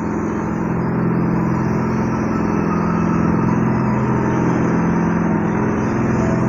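Steady, loud drone of a running engine or motor: a low hum with a hiss above it, holding even throughout.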